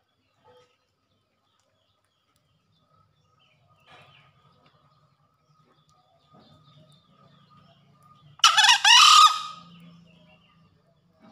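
A male green junglefowl gives a single short, hoarse crow about a second long, a little before the end.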